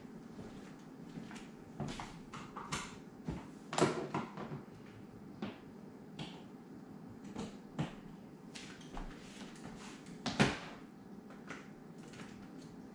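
Scattered clicks and knocks of a power cord and extension cord being handled and plugged in, with two louder knocks about four and ten seconds in, over a faint steady hum.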